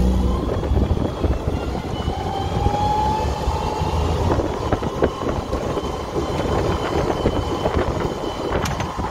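The Hummbug's engine pulling in second gear up a hill, with a whine that rises and falls and frequent clicks and rattles over the running noise.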